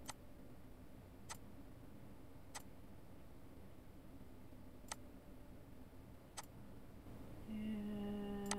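Computer mouse clicking: six sharp single clicks, one every one to two seconds, over a faint steady low hum. A steady pitched hum with overtones comes in near the end.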